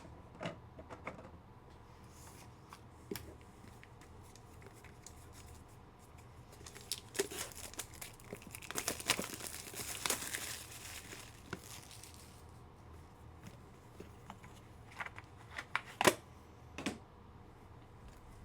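A sports-card pack wrapper being torn open and crinkled, with a run of dense ripping and rustling in the middle, then sharp clicks and taps of cards being handled near the end.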